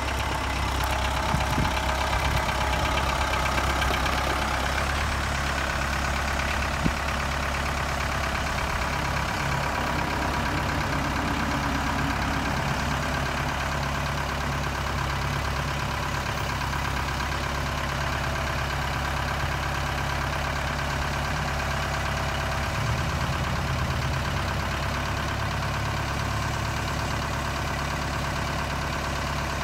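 Kubota M9540 tractor's four-cylinder turbo diesel engine running at a steady idle, with a single sharp click about seven seconds in.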